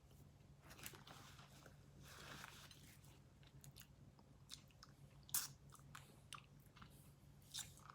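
Faint chewing and mouth sounds of a person eating seafood boil, with scattered small clicks and crunches, the sharpest about five seconds in, over a faint steady hum.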